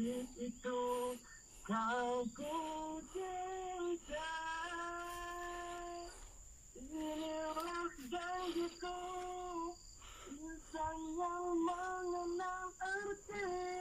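A woman singing a slow melody in phrases, with several long held notes.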